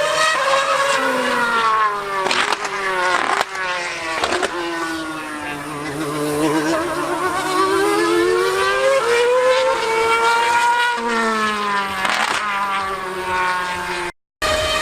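2013 Mercedes Formula 1 car's V8 engine at high revs, its pitch falling and rising again and again as it runs through the gears, with a few sharp cracks along the way. The sound cuts out briefly near the end.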